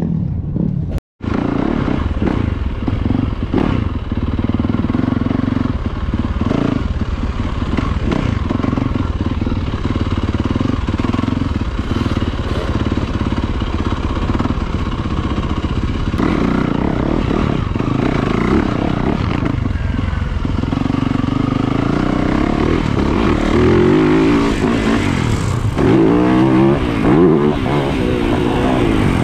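Yamaha 250 two-stroke dirt bike engine running, heard close up from the rider's onboard camera while riding. Near the end the engine revs up and down repeatedly as the bike accelerates along the track.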